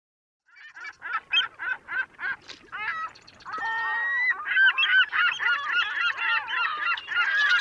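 Bird calls: a run of short, repeated calls, about three a second, then from about three and a half seconds in many overlapping calls at once, like a flock.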